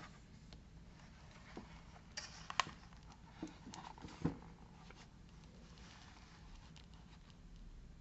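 Paper rustling and a few soft knocks as a hardcover picture book is closed and handled, the loudest knocks about two and a half and four seconds in.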